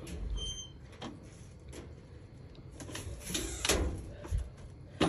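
Rustling and light knocks as things are handled at a kitchen counter, with the loudest rustle about three and a half seconds in, likely a plastic bag being crumpled. A dull bump near the start.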